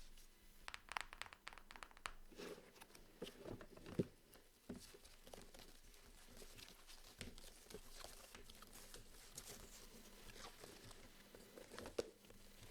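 Paper being handled: soft rustling and crinkling, with a few light sharp taps, the clearest about four seconds in and near the end.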